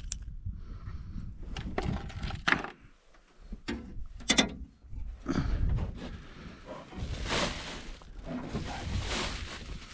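Gear handled inside a metal boat: a few sharp knocks and clatters as a hand reaches under a seat, the loudest about four seconds in, then two longer bursts of rustling near the end.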